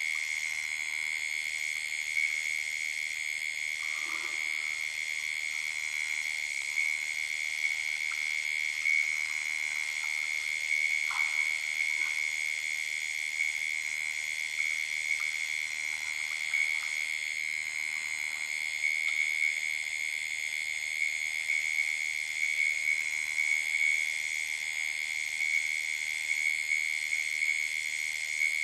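Steady night chorus of frogs and insects at a waterhole, dominated by one continuous shrill high tone with fainter high trilling above it.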